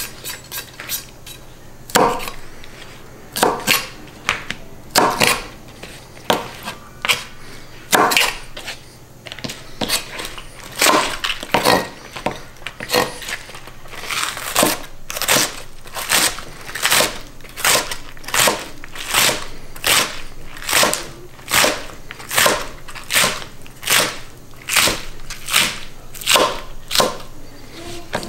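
Kitchen knife chopping green onions on a thin plastic cutting mat, each cut ending in a sharp knock. Scattered chops at first, then a steady rhythm of about two chops a second from about halfway.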